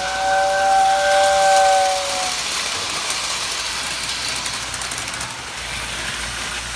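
Lionel postwar whistle tender blowing its two-note whistle chord steadily, cutting off after about two seconds, followed by a steady hiss with light clicking from the running train.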